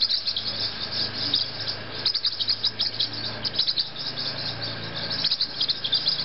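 High chirping and twittering of small green parrots: many short chirps in quick, uneven succession.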